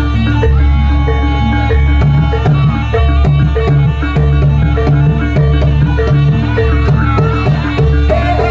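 Javanese jaranan accompaniment music: hand drums beat an even, driving rhythm under a repeating melodic line. Near the end a held, wavering high melody line comes in.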